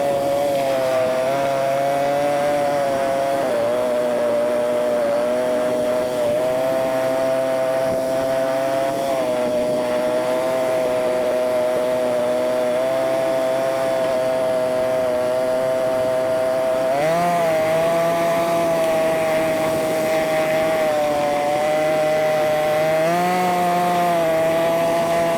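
ATV engine running at a steady speed, its pitch raised to a high, chainsaw-like whine by the sped-up playback. The pitch swings up briefly twice, about two-thirds of the way through and again near the end, as the throttle is opened.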